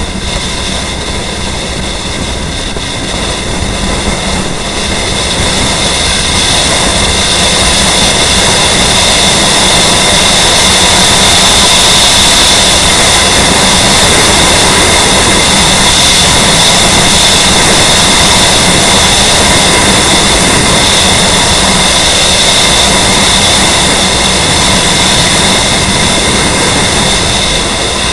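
Steady, loud roar of wind and road noise on a camera carried by a moving motorcycle, building over the first several seconds and easing slightly near the end.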